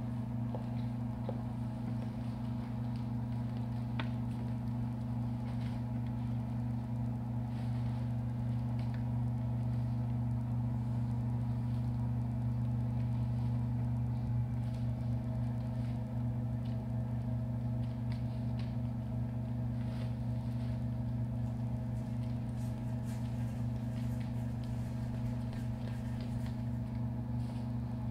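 Steady low droning hum from the piece's sound design, holding one pitch throughout, with faint scattered clicks and taps over it.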